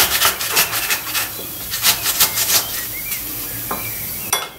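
A whole red apple rasped back and forth on a flat metal hand grater, in quick scraping strokes about three to four a second. The strokes die away after about two and a half seconds, with a single sharp click near the end.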